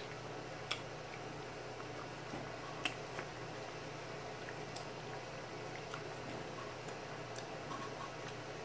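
Eating sounds from pulling apart rotisserie chicken by hand: a few short, sharp, wet clicks and smacks from chewing and finger-licking, the loudest in the first three seconds. Underneath is a faint steady background hiss.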